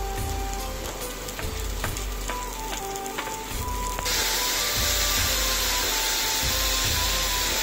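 Sliced button mushrooms frying in oil in a pan, sizzling steadily; the sizzle turns suddenly louder and brighter about four seconds in, as the mushrooms brown.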